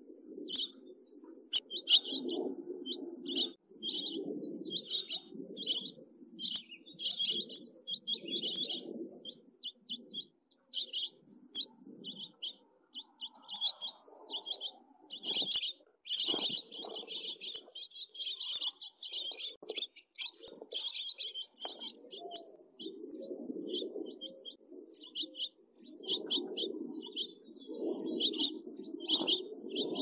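Young house finches at the nest chirping in rapid runs of short, high notes that keep going with only brief gaps. Lower muffled sounds come and go underneath.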